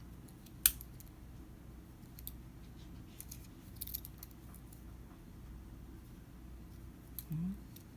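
Metal clicks and taps from a Victorinox Swiss army knife being handled as its tools are opened and closed. One sharp snap comes about a second in, a few lighter clicks follow in a cluster a few seconds later, and there is another click near the end.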